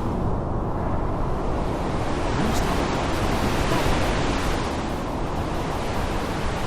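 Rainstorm: a steady, dense rush of heavy rain, with the hiss dulling slightly near the start and filling back in after a couple of seconds.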